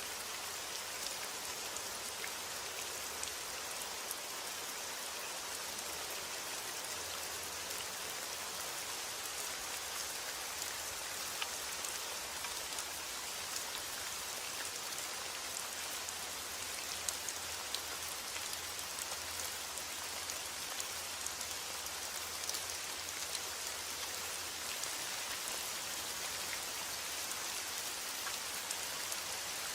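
Steady rainfall: an even hiss of rain with many small drops ticking on a surface.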